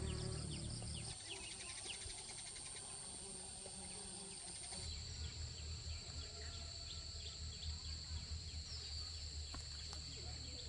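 Insects shrilling in steady high-pitched tones, one tone giving way to another about five seconds in, over a low rumble with scattered faint ticks.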